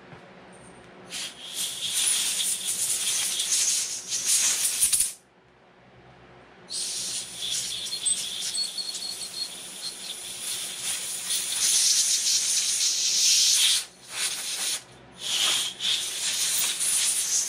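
Compressed air from a handheld blow gun hissing as it is blown through the ports of a chainsaw carburetor to clear out the carb cleaner, in two long blasts followed by three short ones.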